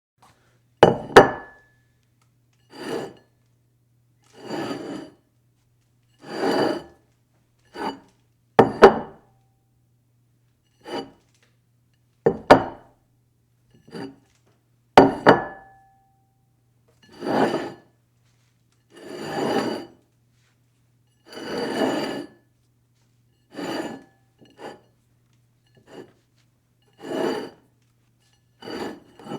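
A dish slid across a table again and again: a series of separate scrapes, some about a second long, others short and sharp. A few of the slides end in a knock that rings briefly.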